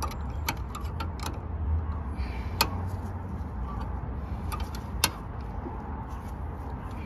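Spanner clicking against a brake line fitting as it is turned on a rear brake caliper: a few sharp metallic clicks spaced irregularly, the loudest about two and a half and five seconds in, over a steady low hum.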